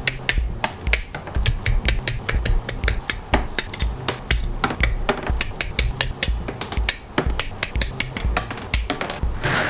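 Background music with a steady low beat and a dense run of sharp clicks, with a brief hissing swell near the end.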